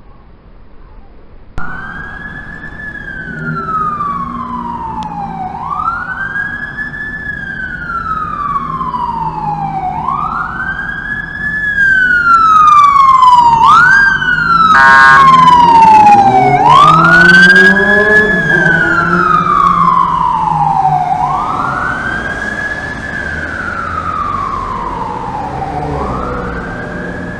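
Fire engine siren wailing, each cycle climbing quickly and falling slowly, about every four seconds. It gets louder as the truck comes close, with a vehicle rumble beneath and a short blast, probably the horn, about halfway through.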